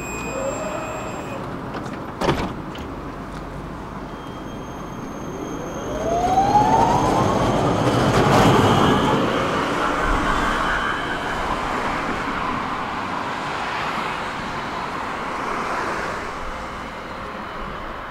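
Electric tram pulling away from a stop: a sharp knock about two seconds in, then the drive's whine rising steadily in pitch as it accelerates, levelling off and slowly fading.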